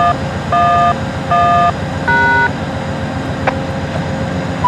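Touch-tone beeps over a railway radio: four short two-note tones about 0.7 s apart, the keyed code that brings an automated "crossing activated" reply. A sharp click follows about three and a half seconds in.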